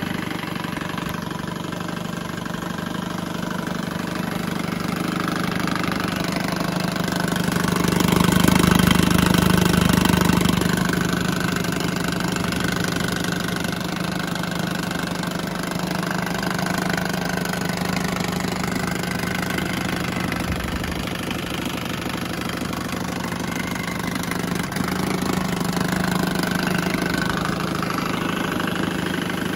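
1970 Johnson 6 hp twin-cylinder two-stroke outboard motor idling steadily, swelling a little louder for a couple of seconds about eight seconds in.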